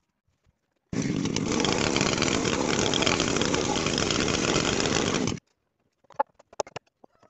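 Chainsaw ripping lengthwise through a wooden beam: a loud, steady cutting noise that starts abruptly about a second in and cuts off suddenly about four and a half seconds later.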